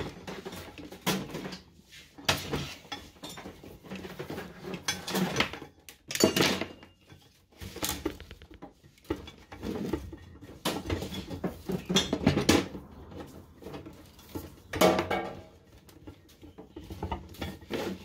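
Irregular metal clanks and knocks as an electric winch and its steel hitch-receiver mount are handled and shifted on a workbench.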